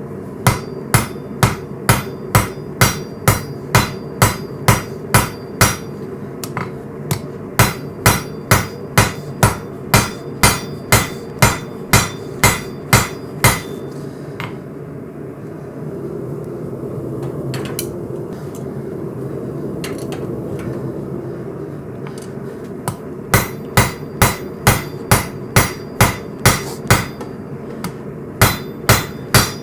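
Peening hammer striking hot coil-spring steel, about two blows a second, drawing out the width of the blade. The blows come in runs, with a pause of about nine seconds in the middle, over a steady hum.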